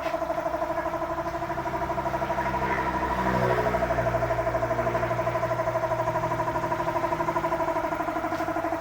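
A motor running steadily with a fast pulsing hum. A deeper rumble joins about three seconds in.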